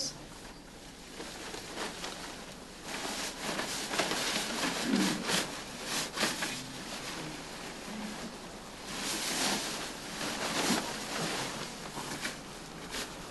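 Rustling and crinkling of a Tyvek disposable coverall as it is handled and stepped into, faint at first and busier from a few seconds in, coming and going unevenly.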